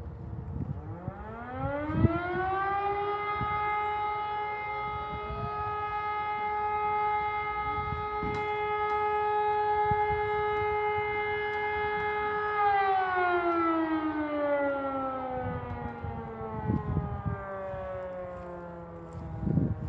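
Electro-mechanical rotary fire siren sounding one blast of the fire-brigade alert: it winds up in pitch over about two seconds, holds a steady howl for about ten seconds, then winds down slowly as the rotor coasts. This is one of the three long tones of the German volunteer fire brigade's call-out signal.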